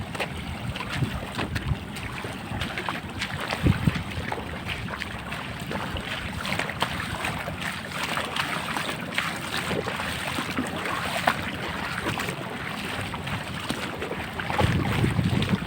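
Wind buffeting the microphone by the sea, with a steady wash of water and many short crackles and splashes; heavier gusts rumble near the end.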